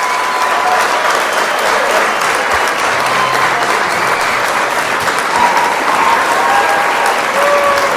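A large crowd applauding in a standing ovation, dense and steady clapping, with a few brief pitched calls over it. It is played as a wake-up alarm at the end of a nap.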